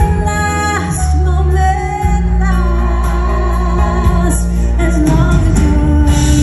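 A woman singing a ballad melody with long held notes over a live band, with a steady bass and light cymbal taps, amplified through a concert sound system.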